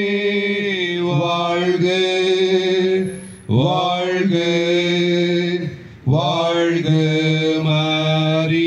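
A voice chanting the Tamil acclamation "vaazhga" (hail) in long held notes. Each note starts with an upward swoop in pitch, with a short breath between notes about three and six seconds in.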